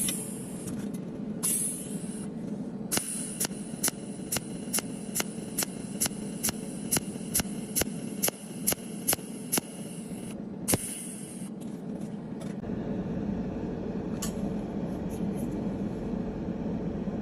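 Cold welding machine firing a steady run of sharp discharge clicks, about two to three a second for roughly eight seconds, as it welds filler into a crack in a stainless iron wheel hub. Under it runs a steady machine hum, with a couple of brief hisses before the clicking starts.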